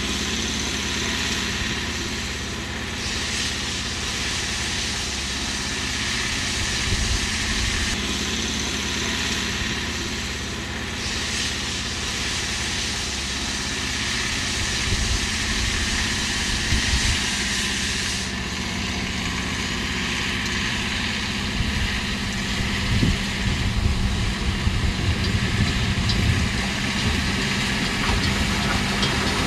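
Ex-Salzkammergut-Lokalbahn No. 12 narrow-gauge steam locomotive working toward the listener, its exhaust and running noise heard as a steady rumble that grows louder and more uneven as it draws close near the end.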